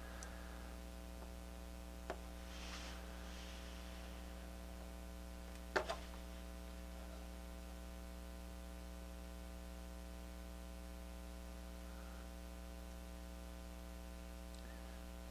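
Steady low electrical mains hum, with a faint click about two seconds in and a short, louder blip about six seconds in.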